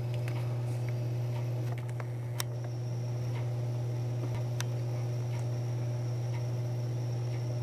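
Steady low hum with a faint high whine above it, and a few sharp clicks scattered through, the strongest about two and a half seconds in.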